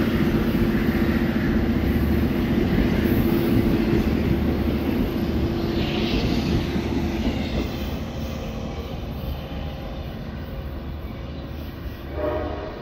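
LIRR DE30AC diesel locomotive's EMD 710 engine running steadily as the train moves away, fading over several seconds. A short horn blast sounds near the end.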